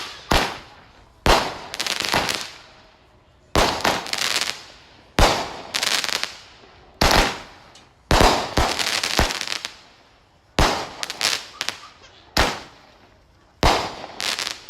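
A 16-shot 200-gram fireworks cake (Brothers Fireworks Golden Peacock) firing shot after shot, about one a second and sometimes several in quick succession. Each shot is a sharp bang that trails off into a second or so of hiss.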